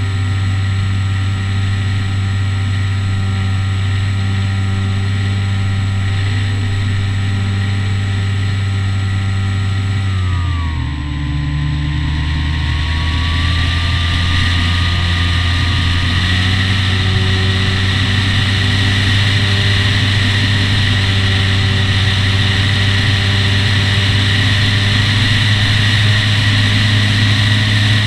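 Electric motor and propeller of a Skywalker 1900mm FPV plane running steadily in flight, with wind rushing past. About ten seconds in the motor's pitch drops suddenly, then climbs back partway over the next few seconds and holds steady, with the wind noise louder afterwards.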